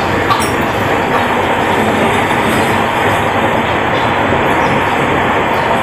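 Passenger train running at speed: a loud, steady rush of wheel and rail noise, heard from beside an open carriage window.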